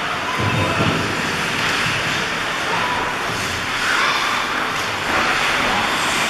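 Ice arena game ambience: a steady noisy wash of skates scraping and gliding on the ice and the hall's background hum. Faint voices call out around the four-second mark.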